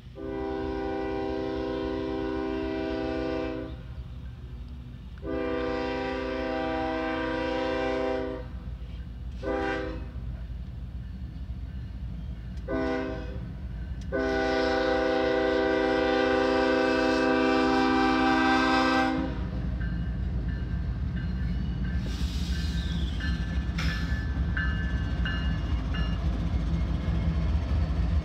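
Norfolk Southern diesel locomotive's multi-chime air horn blowing five blasts: two long, two short, then a long one of about five seconds. Then the locomotives' diesel engines rumble louder as the lead units pass close by.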